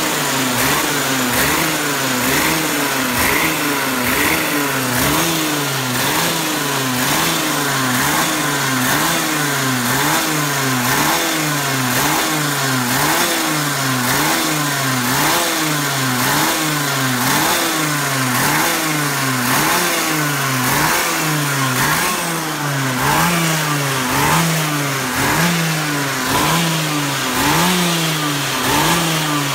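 OK-Junior kart's 125 cc two-stroke engine warming up with the kart on a stand, its revs rising and falling in a steady cycle about once a second.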